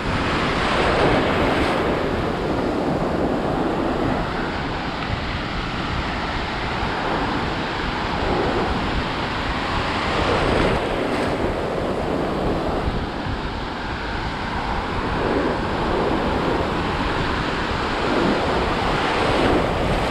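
Atlantic Ocean surf washing and breaking around the wader in a continuous rush that swells every several seconds, with wind buffeting the microphone.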